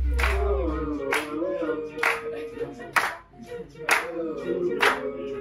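A group of people singing together, clapping along on a steady beat about once a second. A low hum under it cuts off about a second in.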